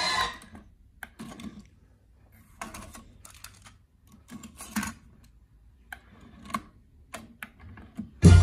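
Cassette deck being worked by hand: music playback stops abruptly just after the start as the stop button is pressed, followed by a series of plastic and mechanical clicks and clunks from the eject and cassette door, a tape cassette being handled in and out, and the play button pressed near the end.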